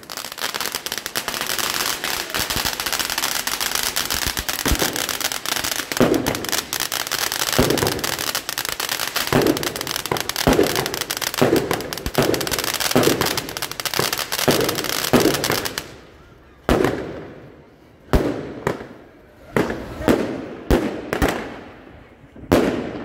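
Consumer fireworks. A ground firework sprays sparks with a continuous hissing crackle and regular thuds, then stops suddenly about 16 seconds in. Around eight separate sharp bangs follow, each fading away, as shots burst overhead.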